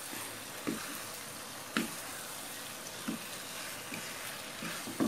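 Fried cauliflower florets sizzling in boiling sauce in a non-stick pan as a wooden spatula stirs them, with about four soft knocks of the spatula against the pan.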